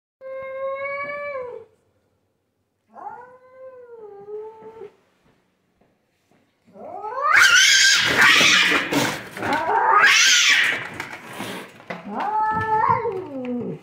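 Cats caterwauling at each other: two drawn-out, wavering yowls, then from about seven seconds in a loud run of harsh screeching yowls, and one more falling yowl near the end. It is the sound of a standoff between a house cat and a cat outside the window.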